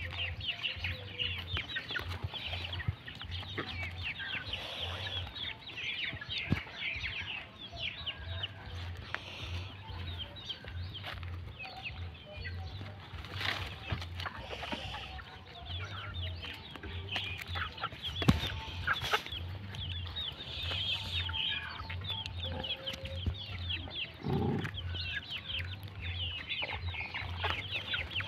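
A flock of young chickens peeping and clucking continuously in a dense chatter of short high calls, with a low pulsing hum underneath.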